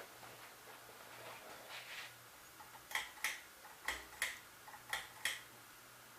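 SMC DC-52 ceiling fan running on low with a faint steady motor hum. About halfway through, sharp clicks start coming in pairs roughly once a second, three pairs in all.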